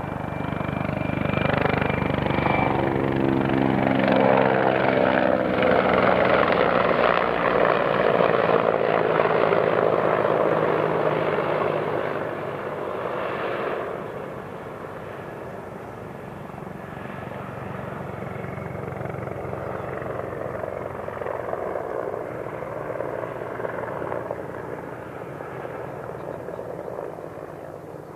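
Mil Mi-24P attack helicopter flying past: steady rotor beat and engine noise that falls in pitch over the first few seconds as it passes. It is loudest for several seconds, then drops off sharply and carries on more quietly.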